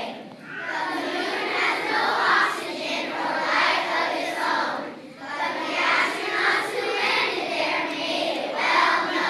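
Children's choir singing, phrase after phrase, with a brief break about five seconds in.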